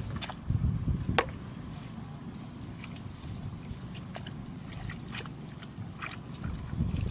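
Hands and bare feet squelching and sloshing in shallow muddy water, with scattered drips and small splashes. The sloshing is louder in the first second and again near the end, and there is a sharp splash about a second in.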